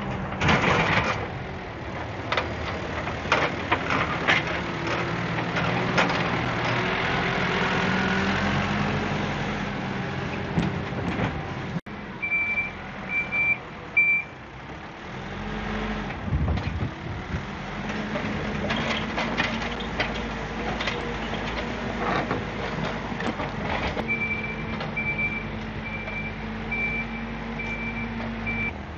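Diesel engine of an excavator working, with knocks and clatter of the bucket and soil. A reversing alarm beeps three times about halfway through, then beeps regularly, about twice a second, near the end.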